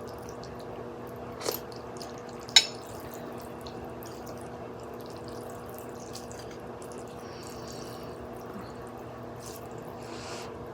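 Eating noodle soup: two sharp clinks of a utensil against the bowl, a second apart, the second louder, over a steady low appliance hum, with soft sipping and slurping sounds near the end.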